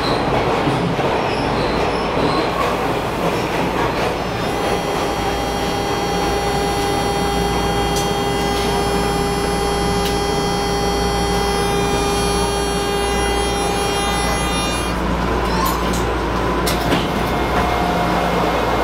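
Interior of a Hawker Siddeley H5 subway car running, a steady rumble of wheels and car body, with a steady whine of several tones from about four seconds in until about fifteen seconds in.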